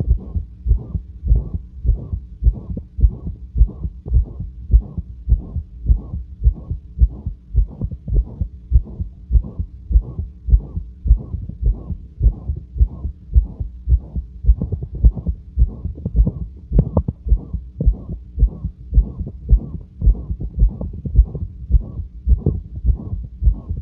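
A human heart heard through a stethoscope, beating calmly and regularly at rest, with a very loud, harsh whooshing heart murmur between the beats.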